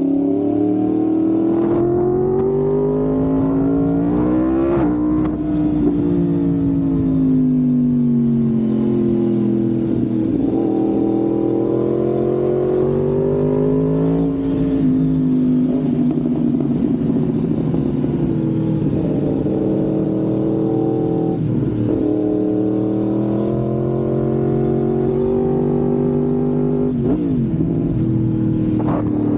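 Yamaha MT-10's crossplane inline-four running through an SC-Project aftermarket exhaust. The revs rise and fall in three slow sweeps of several seconds each, with a short steady stretch between them.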